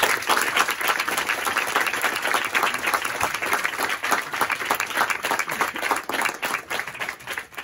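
Audience applauding: dense clapping that starts just as the speech ends and fades out near the end.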